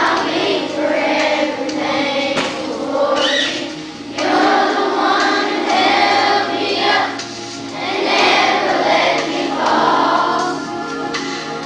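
A class of children singing together as a choir, in sustained phrases with short breaks between them.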